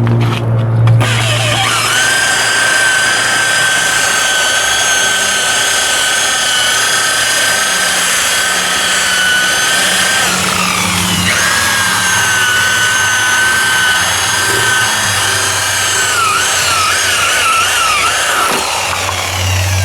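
Electric power buffer spinning a pad against a plastic headlight lens, a steady high whine that sags in pitch about halfway through, then wavers up and down near the end before cutting off.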